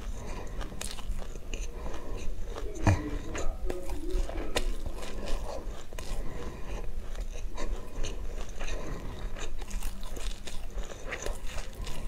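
Close-miked chewing of a mouthful of sesame seeds with passion fruit: many small, irregular crunches and clicks, with a couple of sharper cracks about three and four and a half seconds in.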